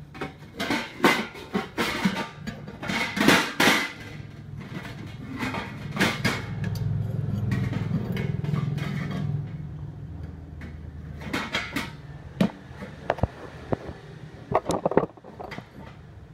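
TIG welding on a bench welder fitted with an automatic pulse board: a steady low machine hum that swells for a few seconds midway while the arc runs, with many sharp, irregular clicks and metal clinks in the first few seconds and again near the end.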